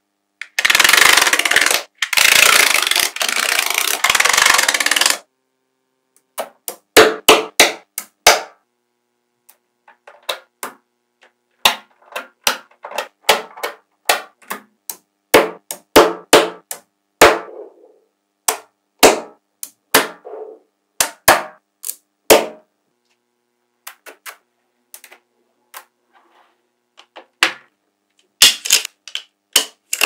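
Small magnetic balls clicking as they snap together, one or two sharp clicks at a time at an irregular pace. Near the start, a few seconds of dense, continuous rattling as a mass of balls shifts and clatters together.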